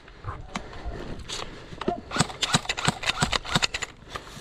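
Footsteps and knocks of gear while moving, quiet at first, then from about two seconds in a quick, irregular run of sharp clicks and knocks, roughly five a second.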